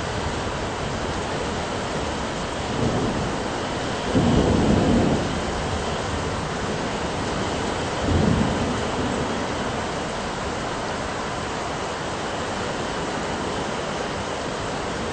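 Thunderstorm: steady rain hiss with thunder rumbling low three times. There is a short rumble about three seconds in, a louder one lasting about a second just after four seconds, and another around eight seconds. Then only the rain goes on.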